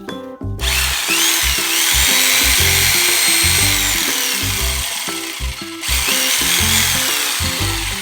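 Cordless power tool motor being test-run: it spins up with a rising whine, runs steadily, winds down and cuts off just before six seconds, then runs again briefly with another rise and fall. Background music plays underneath.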